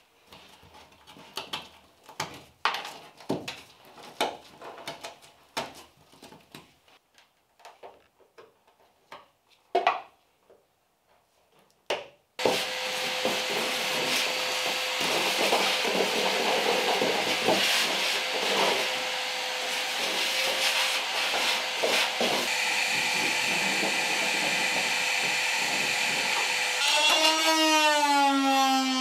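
Old sound deadening being chipped and scraped off a car's steel floor pan in irregular knocks and scrapes. About twelve seconds in, a vacuum cleaner starts abruptly and runs steadily, sucking up the loose debris.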